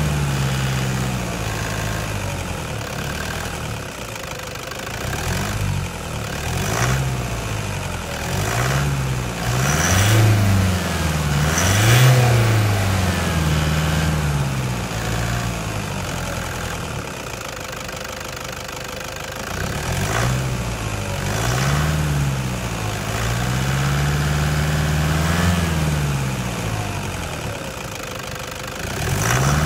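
2011 Toyota Hilux's 2.5-litre 2KD-FTV intercooled turbo diesel four-cylinder, revved again and again from idle. It runs as a string of short blips that rise and fall, drops back to idle for a few seconds in the middle, and takes a longer held rev near the end.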